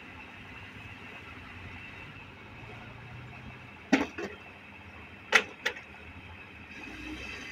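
Caterpillar 320C hydraulic excavator's diesel engine running steadily while it digs, with four sharp knocks in two close pairs, about four and about five and a half seconds in.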